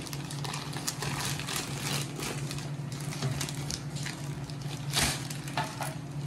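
Handbrake cables and their packaging being handled: irregular clicks, clacks and rustles, with a louder knock about five seconds in, over a steady low hum.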